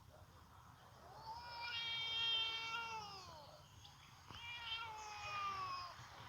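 Domestic cat giving two long, drawn-out meows, each rising and then falling in pitch, the first the louder and longer.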